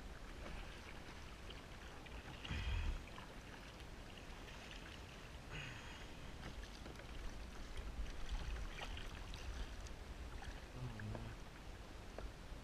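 Sea water sloshing and splashing against a plastic sit-on-top kayak, with a low rumble throughout and a few louder splashes and knocks, the strongest about two and a half seconds in and another about five and a half seconds in.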